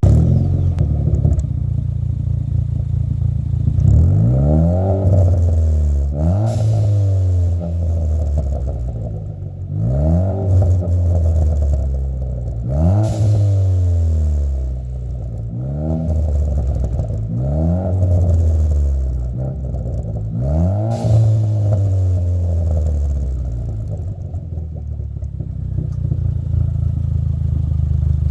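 2019 Ford Fiesta ST engine with a resonator delete, an aftermarket muffler and 3-inch dual tips, idling and then blipped about seven times up to around 3,500 rpm. Each rev rises and falls back with burbles and pops from the exhaust, and the engine settles to idle near the end.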